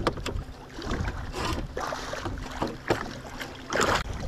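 Wind buffeting the microphone over choppy water, with a few sharp knocks. About four seconds in comes a loud splash as a musky thrashes in the landing net beside the boat.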